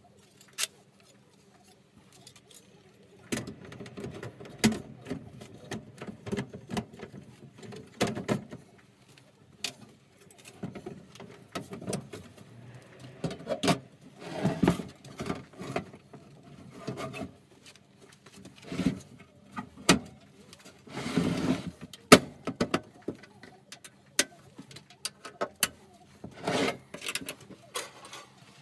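Thin sheet-steel panels of a homemade tent stove being handled and fitted together: scattered metallic clicks, clinks and knocks, with short stretches of metal scraping and sliding.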